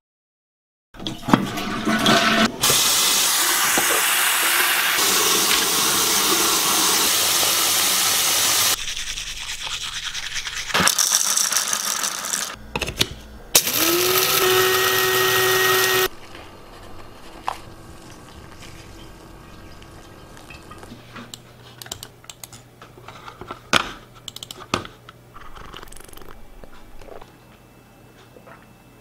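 An electric coffee grinder whirring up to speed and running for about two seconds, about halfway through. Before it come several seconds of steady rushing noise; after it, quieter scattered clicks and taps.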